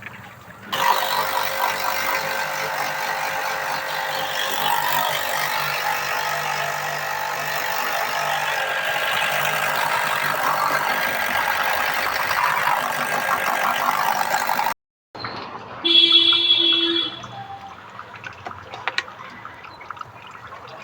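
A loud, steady machine noise with a hiss and a hum that starts sharply and cuts off abruptly after about fourteen seconds, followed by a short tone lasting about a second and then faint clicks.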